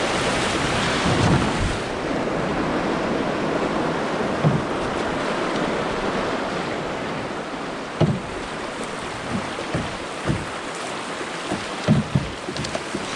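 Whitewater rushing around an open canoe running class II rapids, a steady noise of moving water that is loudest in the first few seconds. Several short, low thumps come from about eight seconds in.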